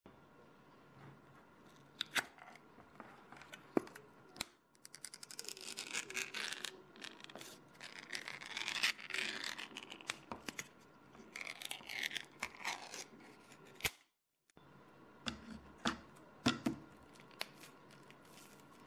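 A Spam can's pull-tab lid clicked open and then peeled back, a long scraping, tearing of thin metal. After a short break, a few knocks of the upturned can on a bamboo cutting board to free the stuck meat.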